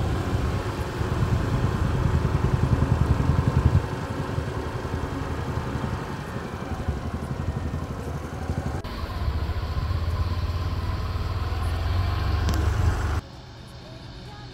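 Claas Crop Tiger 40 combine harvester's diesel engine running as the machine drives along a road, with a motorcycle engine passing close by. The engine sound cuts off suddenly near the end.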